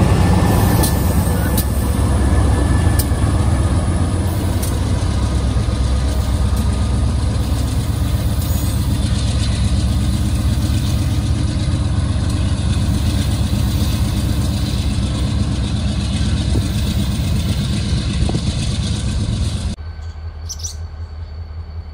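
BNSF diesel locomotives of a gravel train passing, a loud steady low engine drone with a few sharp clicks in the first few seconds. Near the end the sound drops sharply to a much quieter background.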